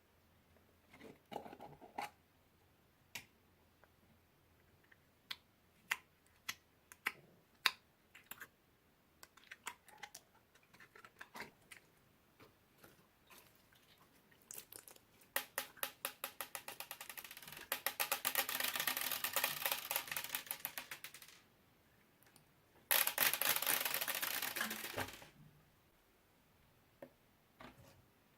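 Slime with magic clay mixed in, being kneaded and squeezed by hand. It gives scattered sticky clicks and pops, then a fast run of crackling pops from about 15 to 21 seconds and a dense squishing burst a little after 23 seconds.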